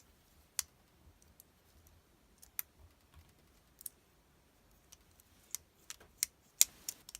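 Leatherman OHT multitool being handled and worked: scattered sharp clicks, a few in the first four seconds, then coming faster near the end.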